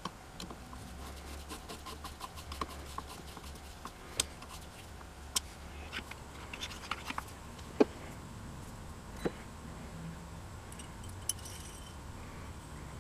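Metal parts of a cast-iron staple binder clicking and tapping as they are handled and fitted together during reassembly: scattered sharp clicks, a few louder knocks, over a steady low hum.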